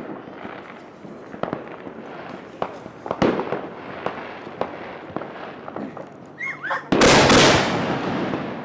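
Consumer fireworks going off: scattered sharp pops and crackles, with a couple of short whistles, then a sudden loud, dense crackling rush about seven seconds in.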